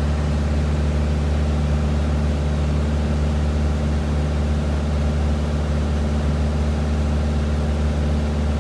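Light airplane's engine droning steadily in flight, heard from inside the cockpit.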